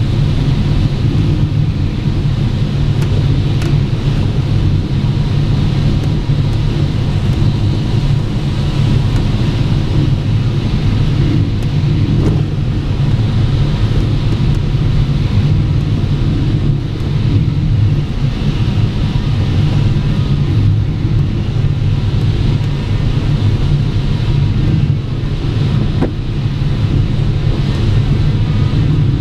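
Steady rush of airflow over a glider's closed canopy, heard from inside the cockpit on final approach, with a deep rumble of wind buffeting.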